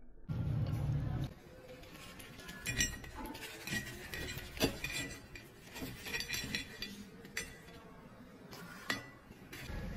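Fried pakoras and a wire mesh strainer clinking and tapping against a ceramic plate as the fritters are set down, in a string of sharp, irregular clinks.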